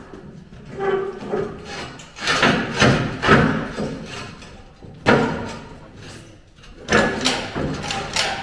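A series of heavy thumps and knocks, about five, as a part of a car-body rotisserie jig is pushed and knocked into its mount on a Ford Capri shell; the part is sticking and will not go fully home.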